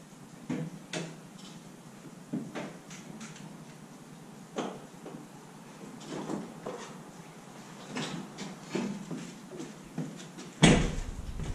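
Kubota B2650 tractor's cab door being opened and the operator climbing out: a scatter of clicks and knocks, then one loud door-shutting thud near the end.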